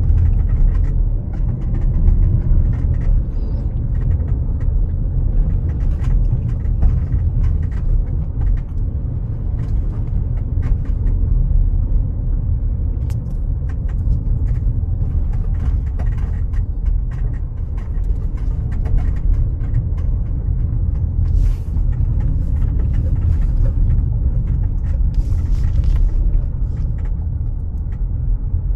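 Car rolling slowly, heard from inside the cabin: a steady low rumble of engine and road noise with scattered light clicks and ticks.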